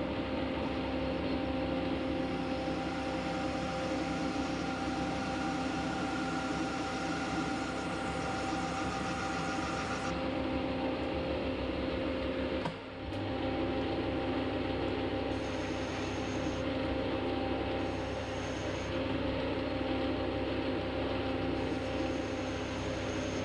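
Metal lathe running steadily with a steady whine from its drive and gearing as the chuck spins a steel workpiece. About two-thirds of the way through the sound dips for a moment, then carries on with a deeper hum.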